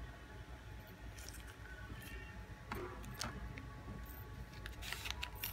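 Faint handling noise of a small silicone-covered keychain speaker being turned over in the hand on a plastic sheet: a few scattered soft clicks and rustles, busiest near the end, over a faint steady hum.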